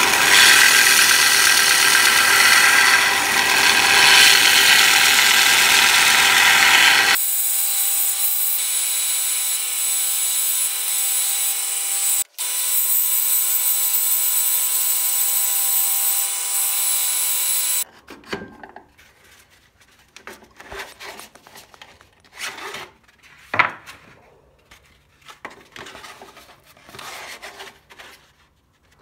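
Ryobi belt sander running with an 80-grit belt while a spindle gouge held in a wooden sharpening jig is ground against it: a steady grinding rasp over the motor's hum. The sander stops about 18 seconds in, and a few light knocks and clicks of the jig being handled follow.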